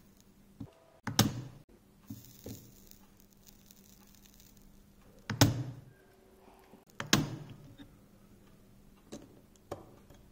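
A spring-loaded desoldering pump firing three times with a sharp snap, sucking molten solder off the pins of a shorted TRIAC on a circuit board. Softer clicks come between the snaps.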